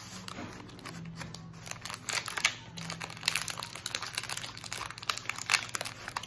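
Gummy candy packaging crinkling and rustling irregularly as it is handled.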